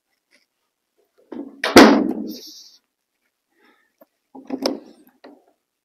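A wooden door bangs shut with one loud thud, then a few seconds later a quick run of knocks on a wooden door.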